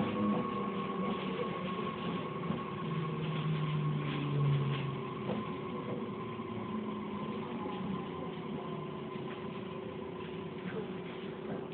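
Running sound inside a JR East E501 series EMU motor car slowing for a station stop. Its Toshiba IGBT VVVF inverter gives a faint whine falling in pitch under braking, over a steady electrical hum, and the overall noise dies away gradually.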